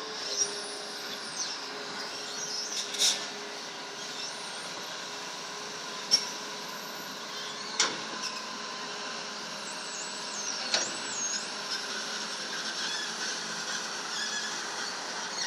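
Small excavator working hard at dredging: its engine runs steadily under load, with high squeals and about five sharp knocks from the digging gear. The uploader says the engine sounds a bit rough because the machine is low-powered.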